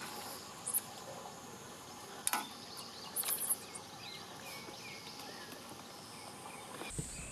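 Insects chirping steadily at a summer reservoir, high-pitched, with a few short louder calls and one sharp click about two seconds in.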